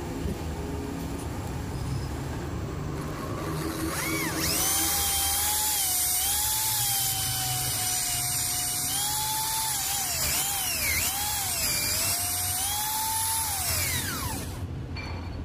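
Small electric drill with a long, thin bit drilling into a metal part held in a vise. A high motor whine starts about four seconds in and dips in pitch several times as the bit bites. It winds down near the end.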